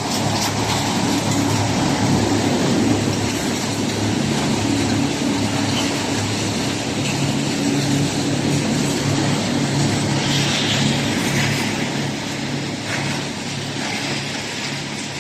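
Wood-crushing machinery of a sawdust production line running steadily: a constant heavy mechanical drone over a low hum, easing slightly near the end.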